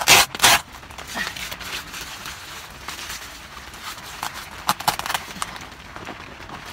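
Tent fabric rustling and crinkling as hands pull and fold it, with two sharp, loud handling noises right at the start and a few light clicks about five seconds in.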